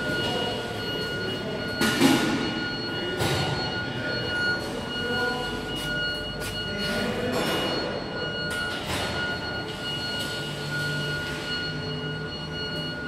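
Hard-PVC granulation line running: a steady mechanical rumble with a constant high whine from its electric drives, and a few irregular knocks and clatters.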